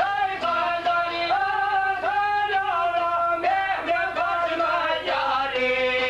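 Albanian folk song: a man sings long, held, wavering phrases over the plucked accompaniment of çifteli long-necked lutes. About five seconds in the voice gives way to the instruments.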